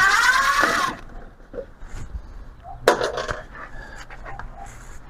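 Power screwdriver whirring for about a second while backing out a screw from the plastic grille, then a few small clicks and handling knocks, one sharper than the rest about three seconds in.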